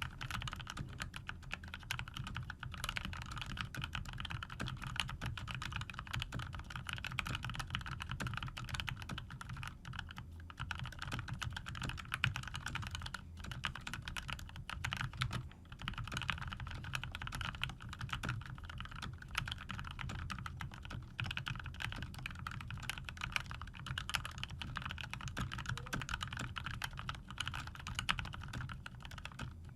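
Continuous fast typing on a COX CK01 TKL mechanical keyboard with lubed GMTX red linear switches and PBT keycaps, a dense run of key clacks with a few brief pauses.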